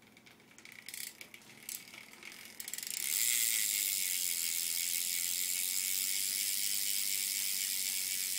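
Rear hub of a 2012 Fit Bike Co BF1 BMX bike freewheeling as the wheel is spun: a few separate pawl clicks for about three seconds, then a loud, fast, steady ratcheting buzz.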